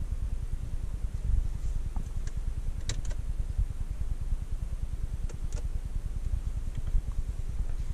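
Inside a stationary Jeep Compass 1.5 e-Hybrid: a steady low rumble of the idling engine and cabin ventilation, with short clicks of centre-console buttons being pressed about three seconds in and again near five and a half seconds.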